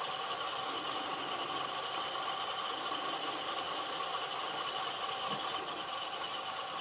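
Wood lathe running steadily at a slow speed of about 440 RPM, giving an even motor hum with a few steady whining tones, while sanding paste is rubbed onto the spinning blank with a paper towel.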